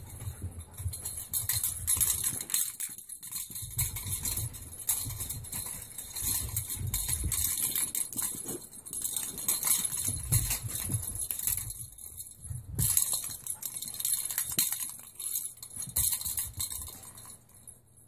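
A freshly bathed small dog scampering around a carpeted room and playing with a ball: irregular soft thumps of running paws and movement, with many quick clicks and scrapes.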